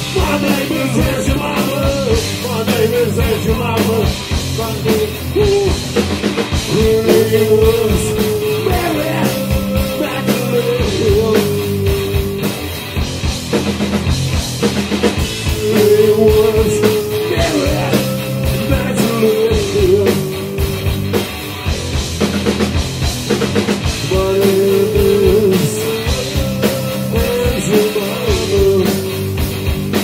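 Punk-leaning rock music with a drum kit and electric guitar. A melody line plays a phrase that comes back about every eight seconds.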